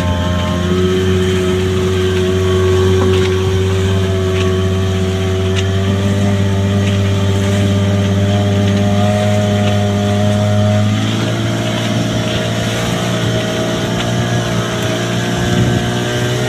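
Tohatsu 30 hp outboard motor running steadily at low revs under load. Its pitch rises slightly about eleven seconds in. The testers judge the engine normal, though it has not yet been taken to high RPM.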